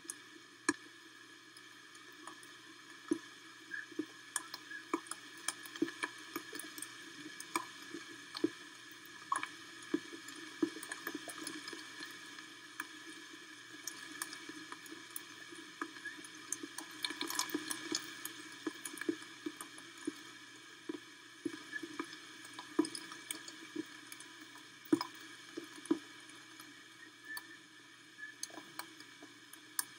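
Rain falling steadily, with many irregular sharp taps and drips of water drops landing close to the microphone, a little heavier about halfway through.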